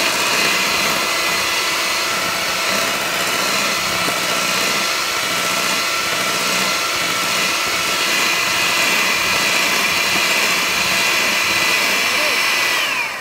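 Electric hand mixer running at high speed, its beaters whipping egg whites and sugar to stiff peaks in a glass bowl: a steady motor whine over the whir of the beaters. Near the end it is switched off and the whine slides down in pitch as the motor winds down.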